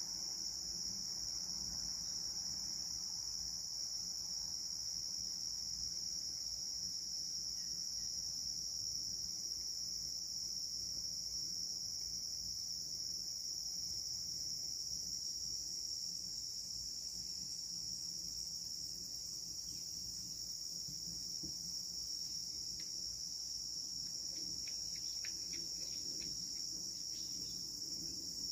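Evening chorus of crickets: one steady, unbroken high-pitched trill.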